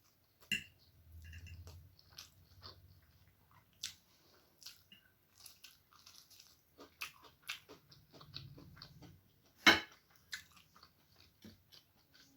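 A person eating close to the microphone, chewing and biting egg chow mein and fried green chillies, with scattered moist clicks and crunches. The loudest is one sharp click nearly ten seconds in.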